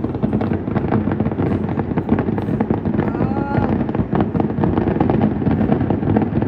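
Fireworks display: a dense, continuous crackle of many small pops from crackling shells, over a low rumble of bursts.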